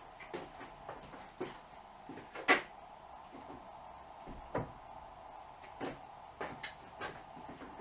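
Chainsaws being hung on a wooden wall rack: a string of irregular knocks and clunks as the saws are handled and set onto the wood, the loudest about two and a half seconds in. A steady hum runs underneath.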